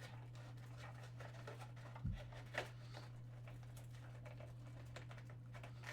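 Faint rustling and light ticks of cardboard packaging being handled as a lightsaber blade is worked out of its box, with a soft thump about two seconds in, over a steady low hum.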